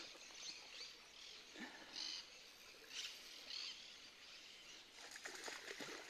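Faint bird chirps, with a hooked tararira splashing at the water's surface, most clearly near the end.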